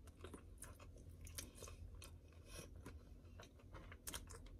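Faint chewing of a bite of guacamole sandwich: many soft, irregular mouth clicks and small crunches.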